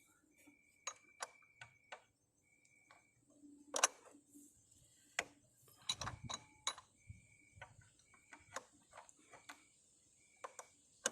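Scattered light clicks and taps at irregular intervals, with a few louder knocks about four and six seconds in.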